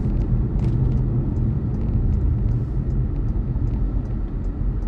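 Car driving on the road, heard from inside the cabin: a steady low rumble of road and engine noise.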